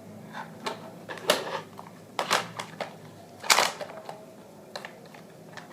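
Plastic parts of a DIY toy truck clicking and knocking together as it is put together by hand: a series of irregular sharp clicks, the loudest about three and a half seconds in.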